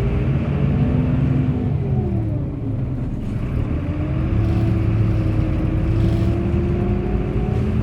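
Bus engine running under way, its pitch rising, falling back about two seconds in, then climbing steadily again.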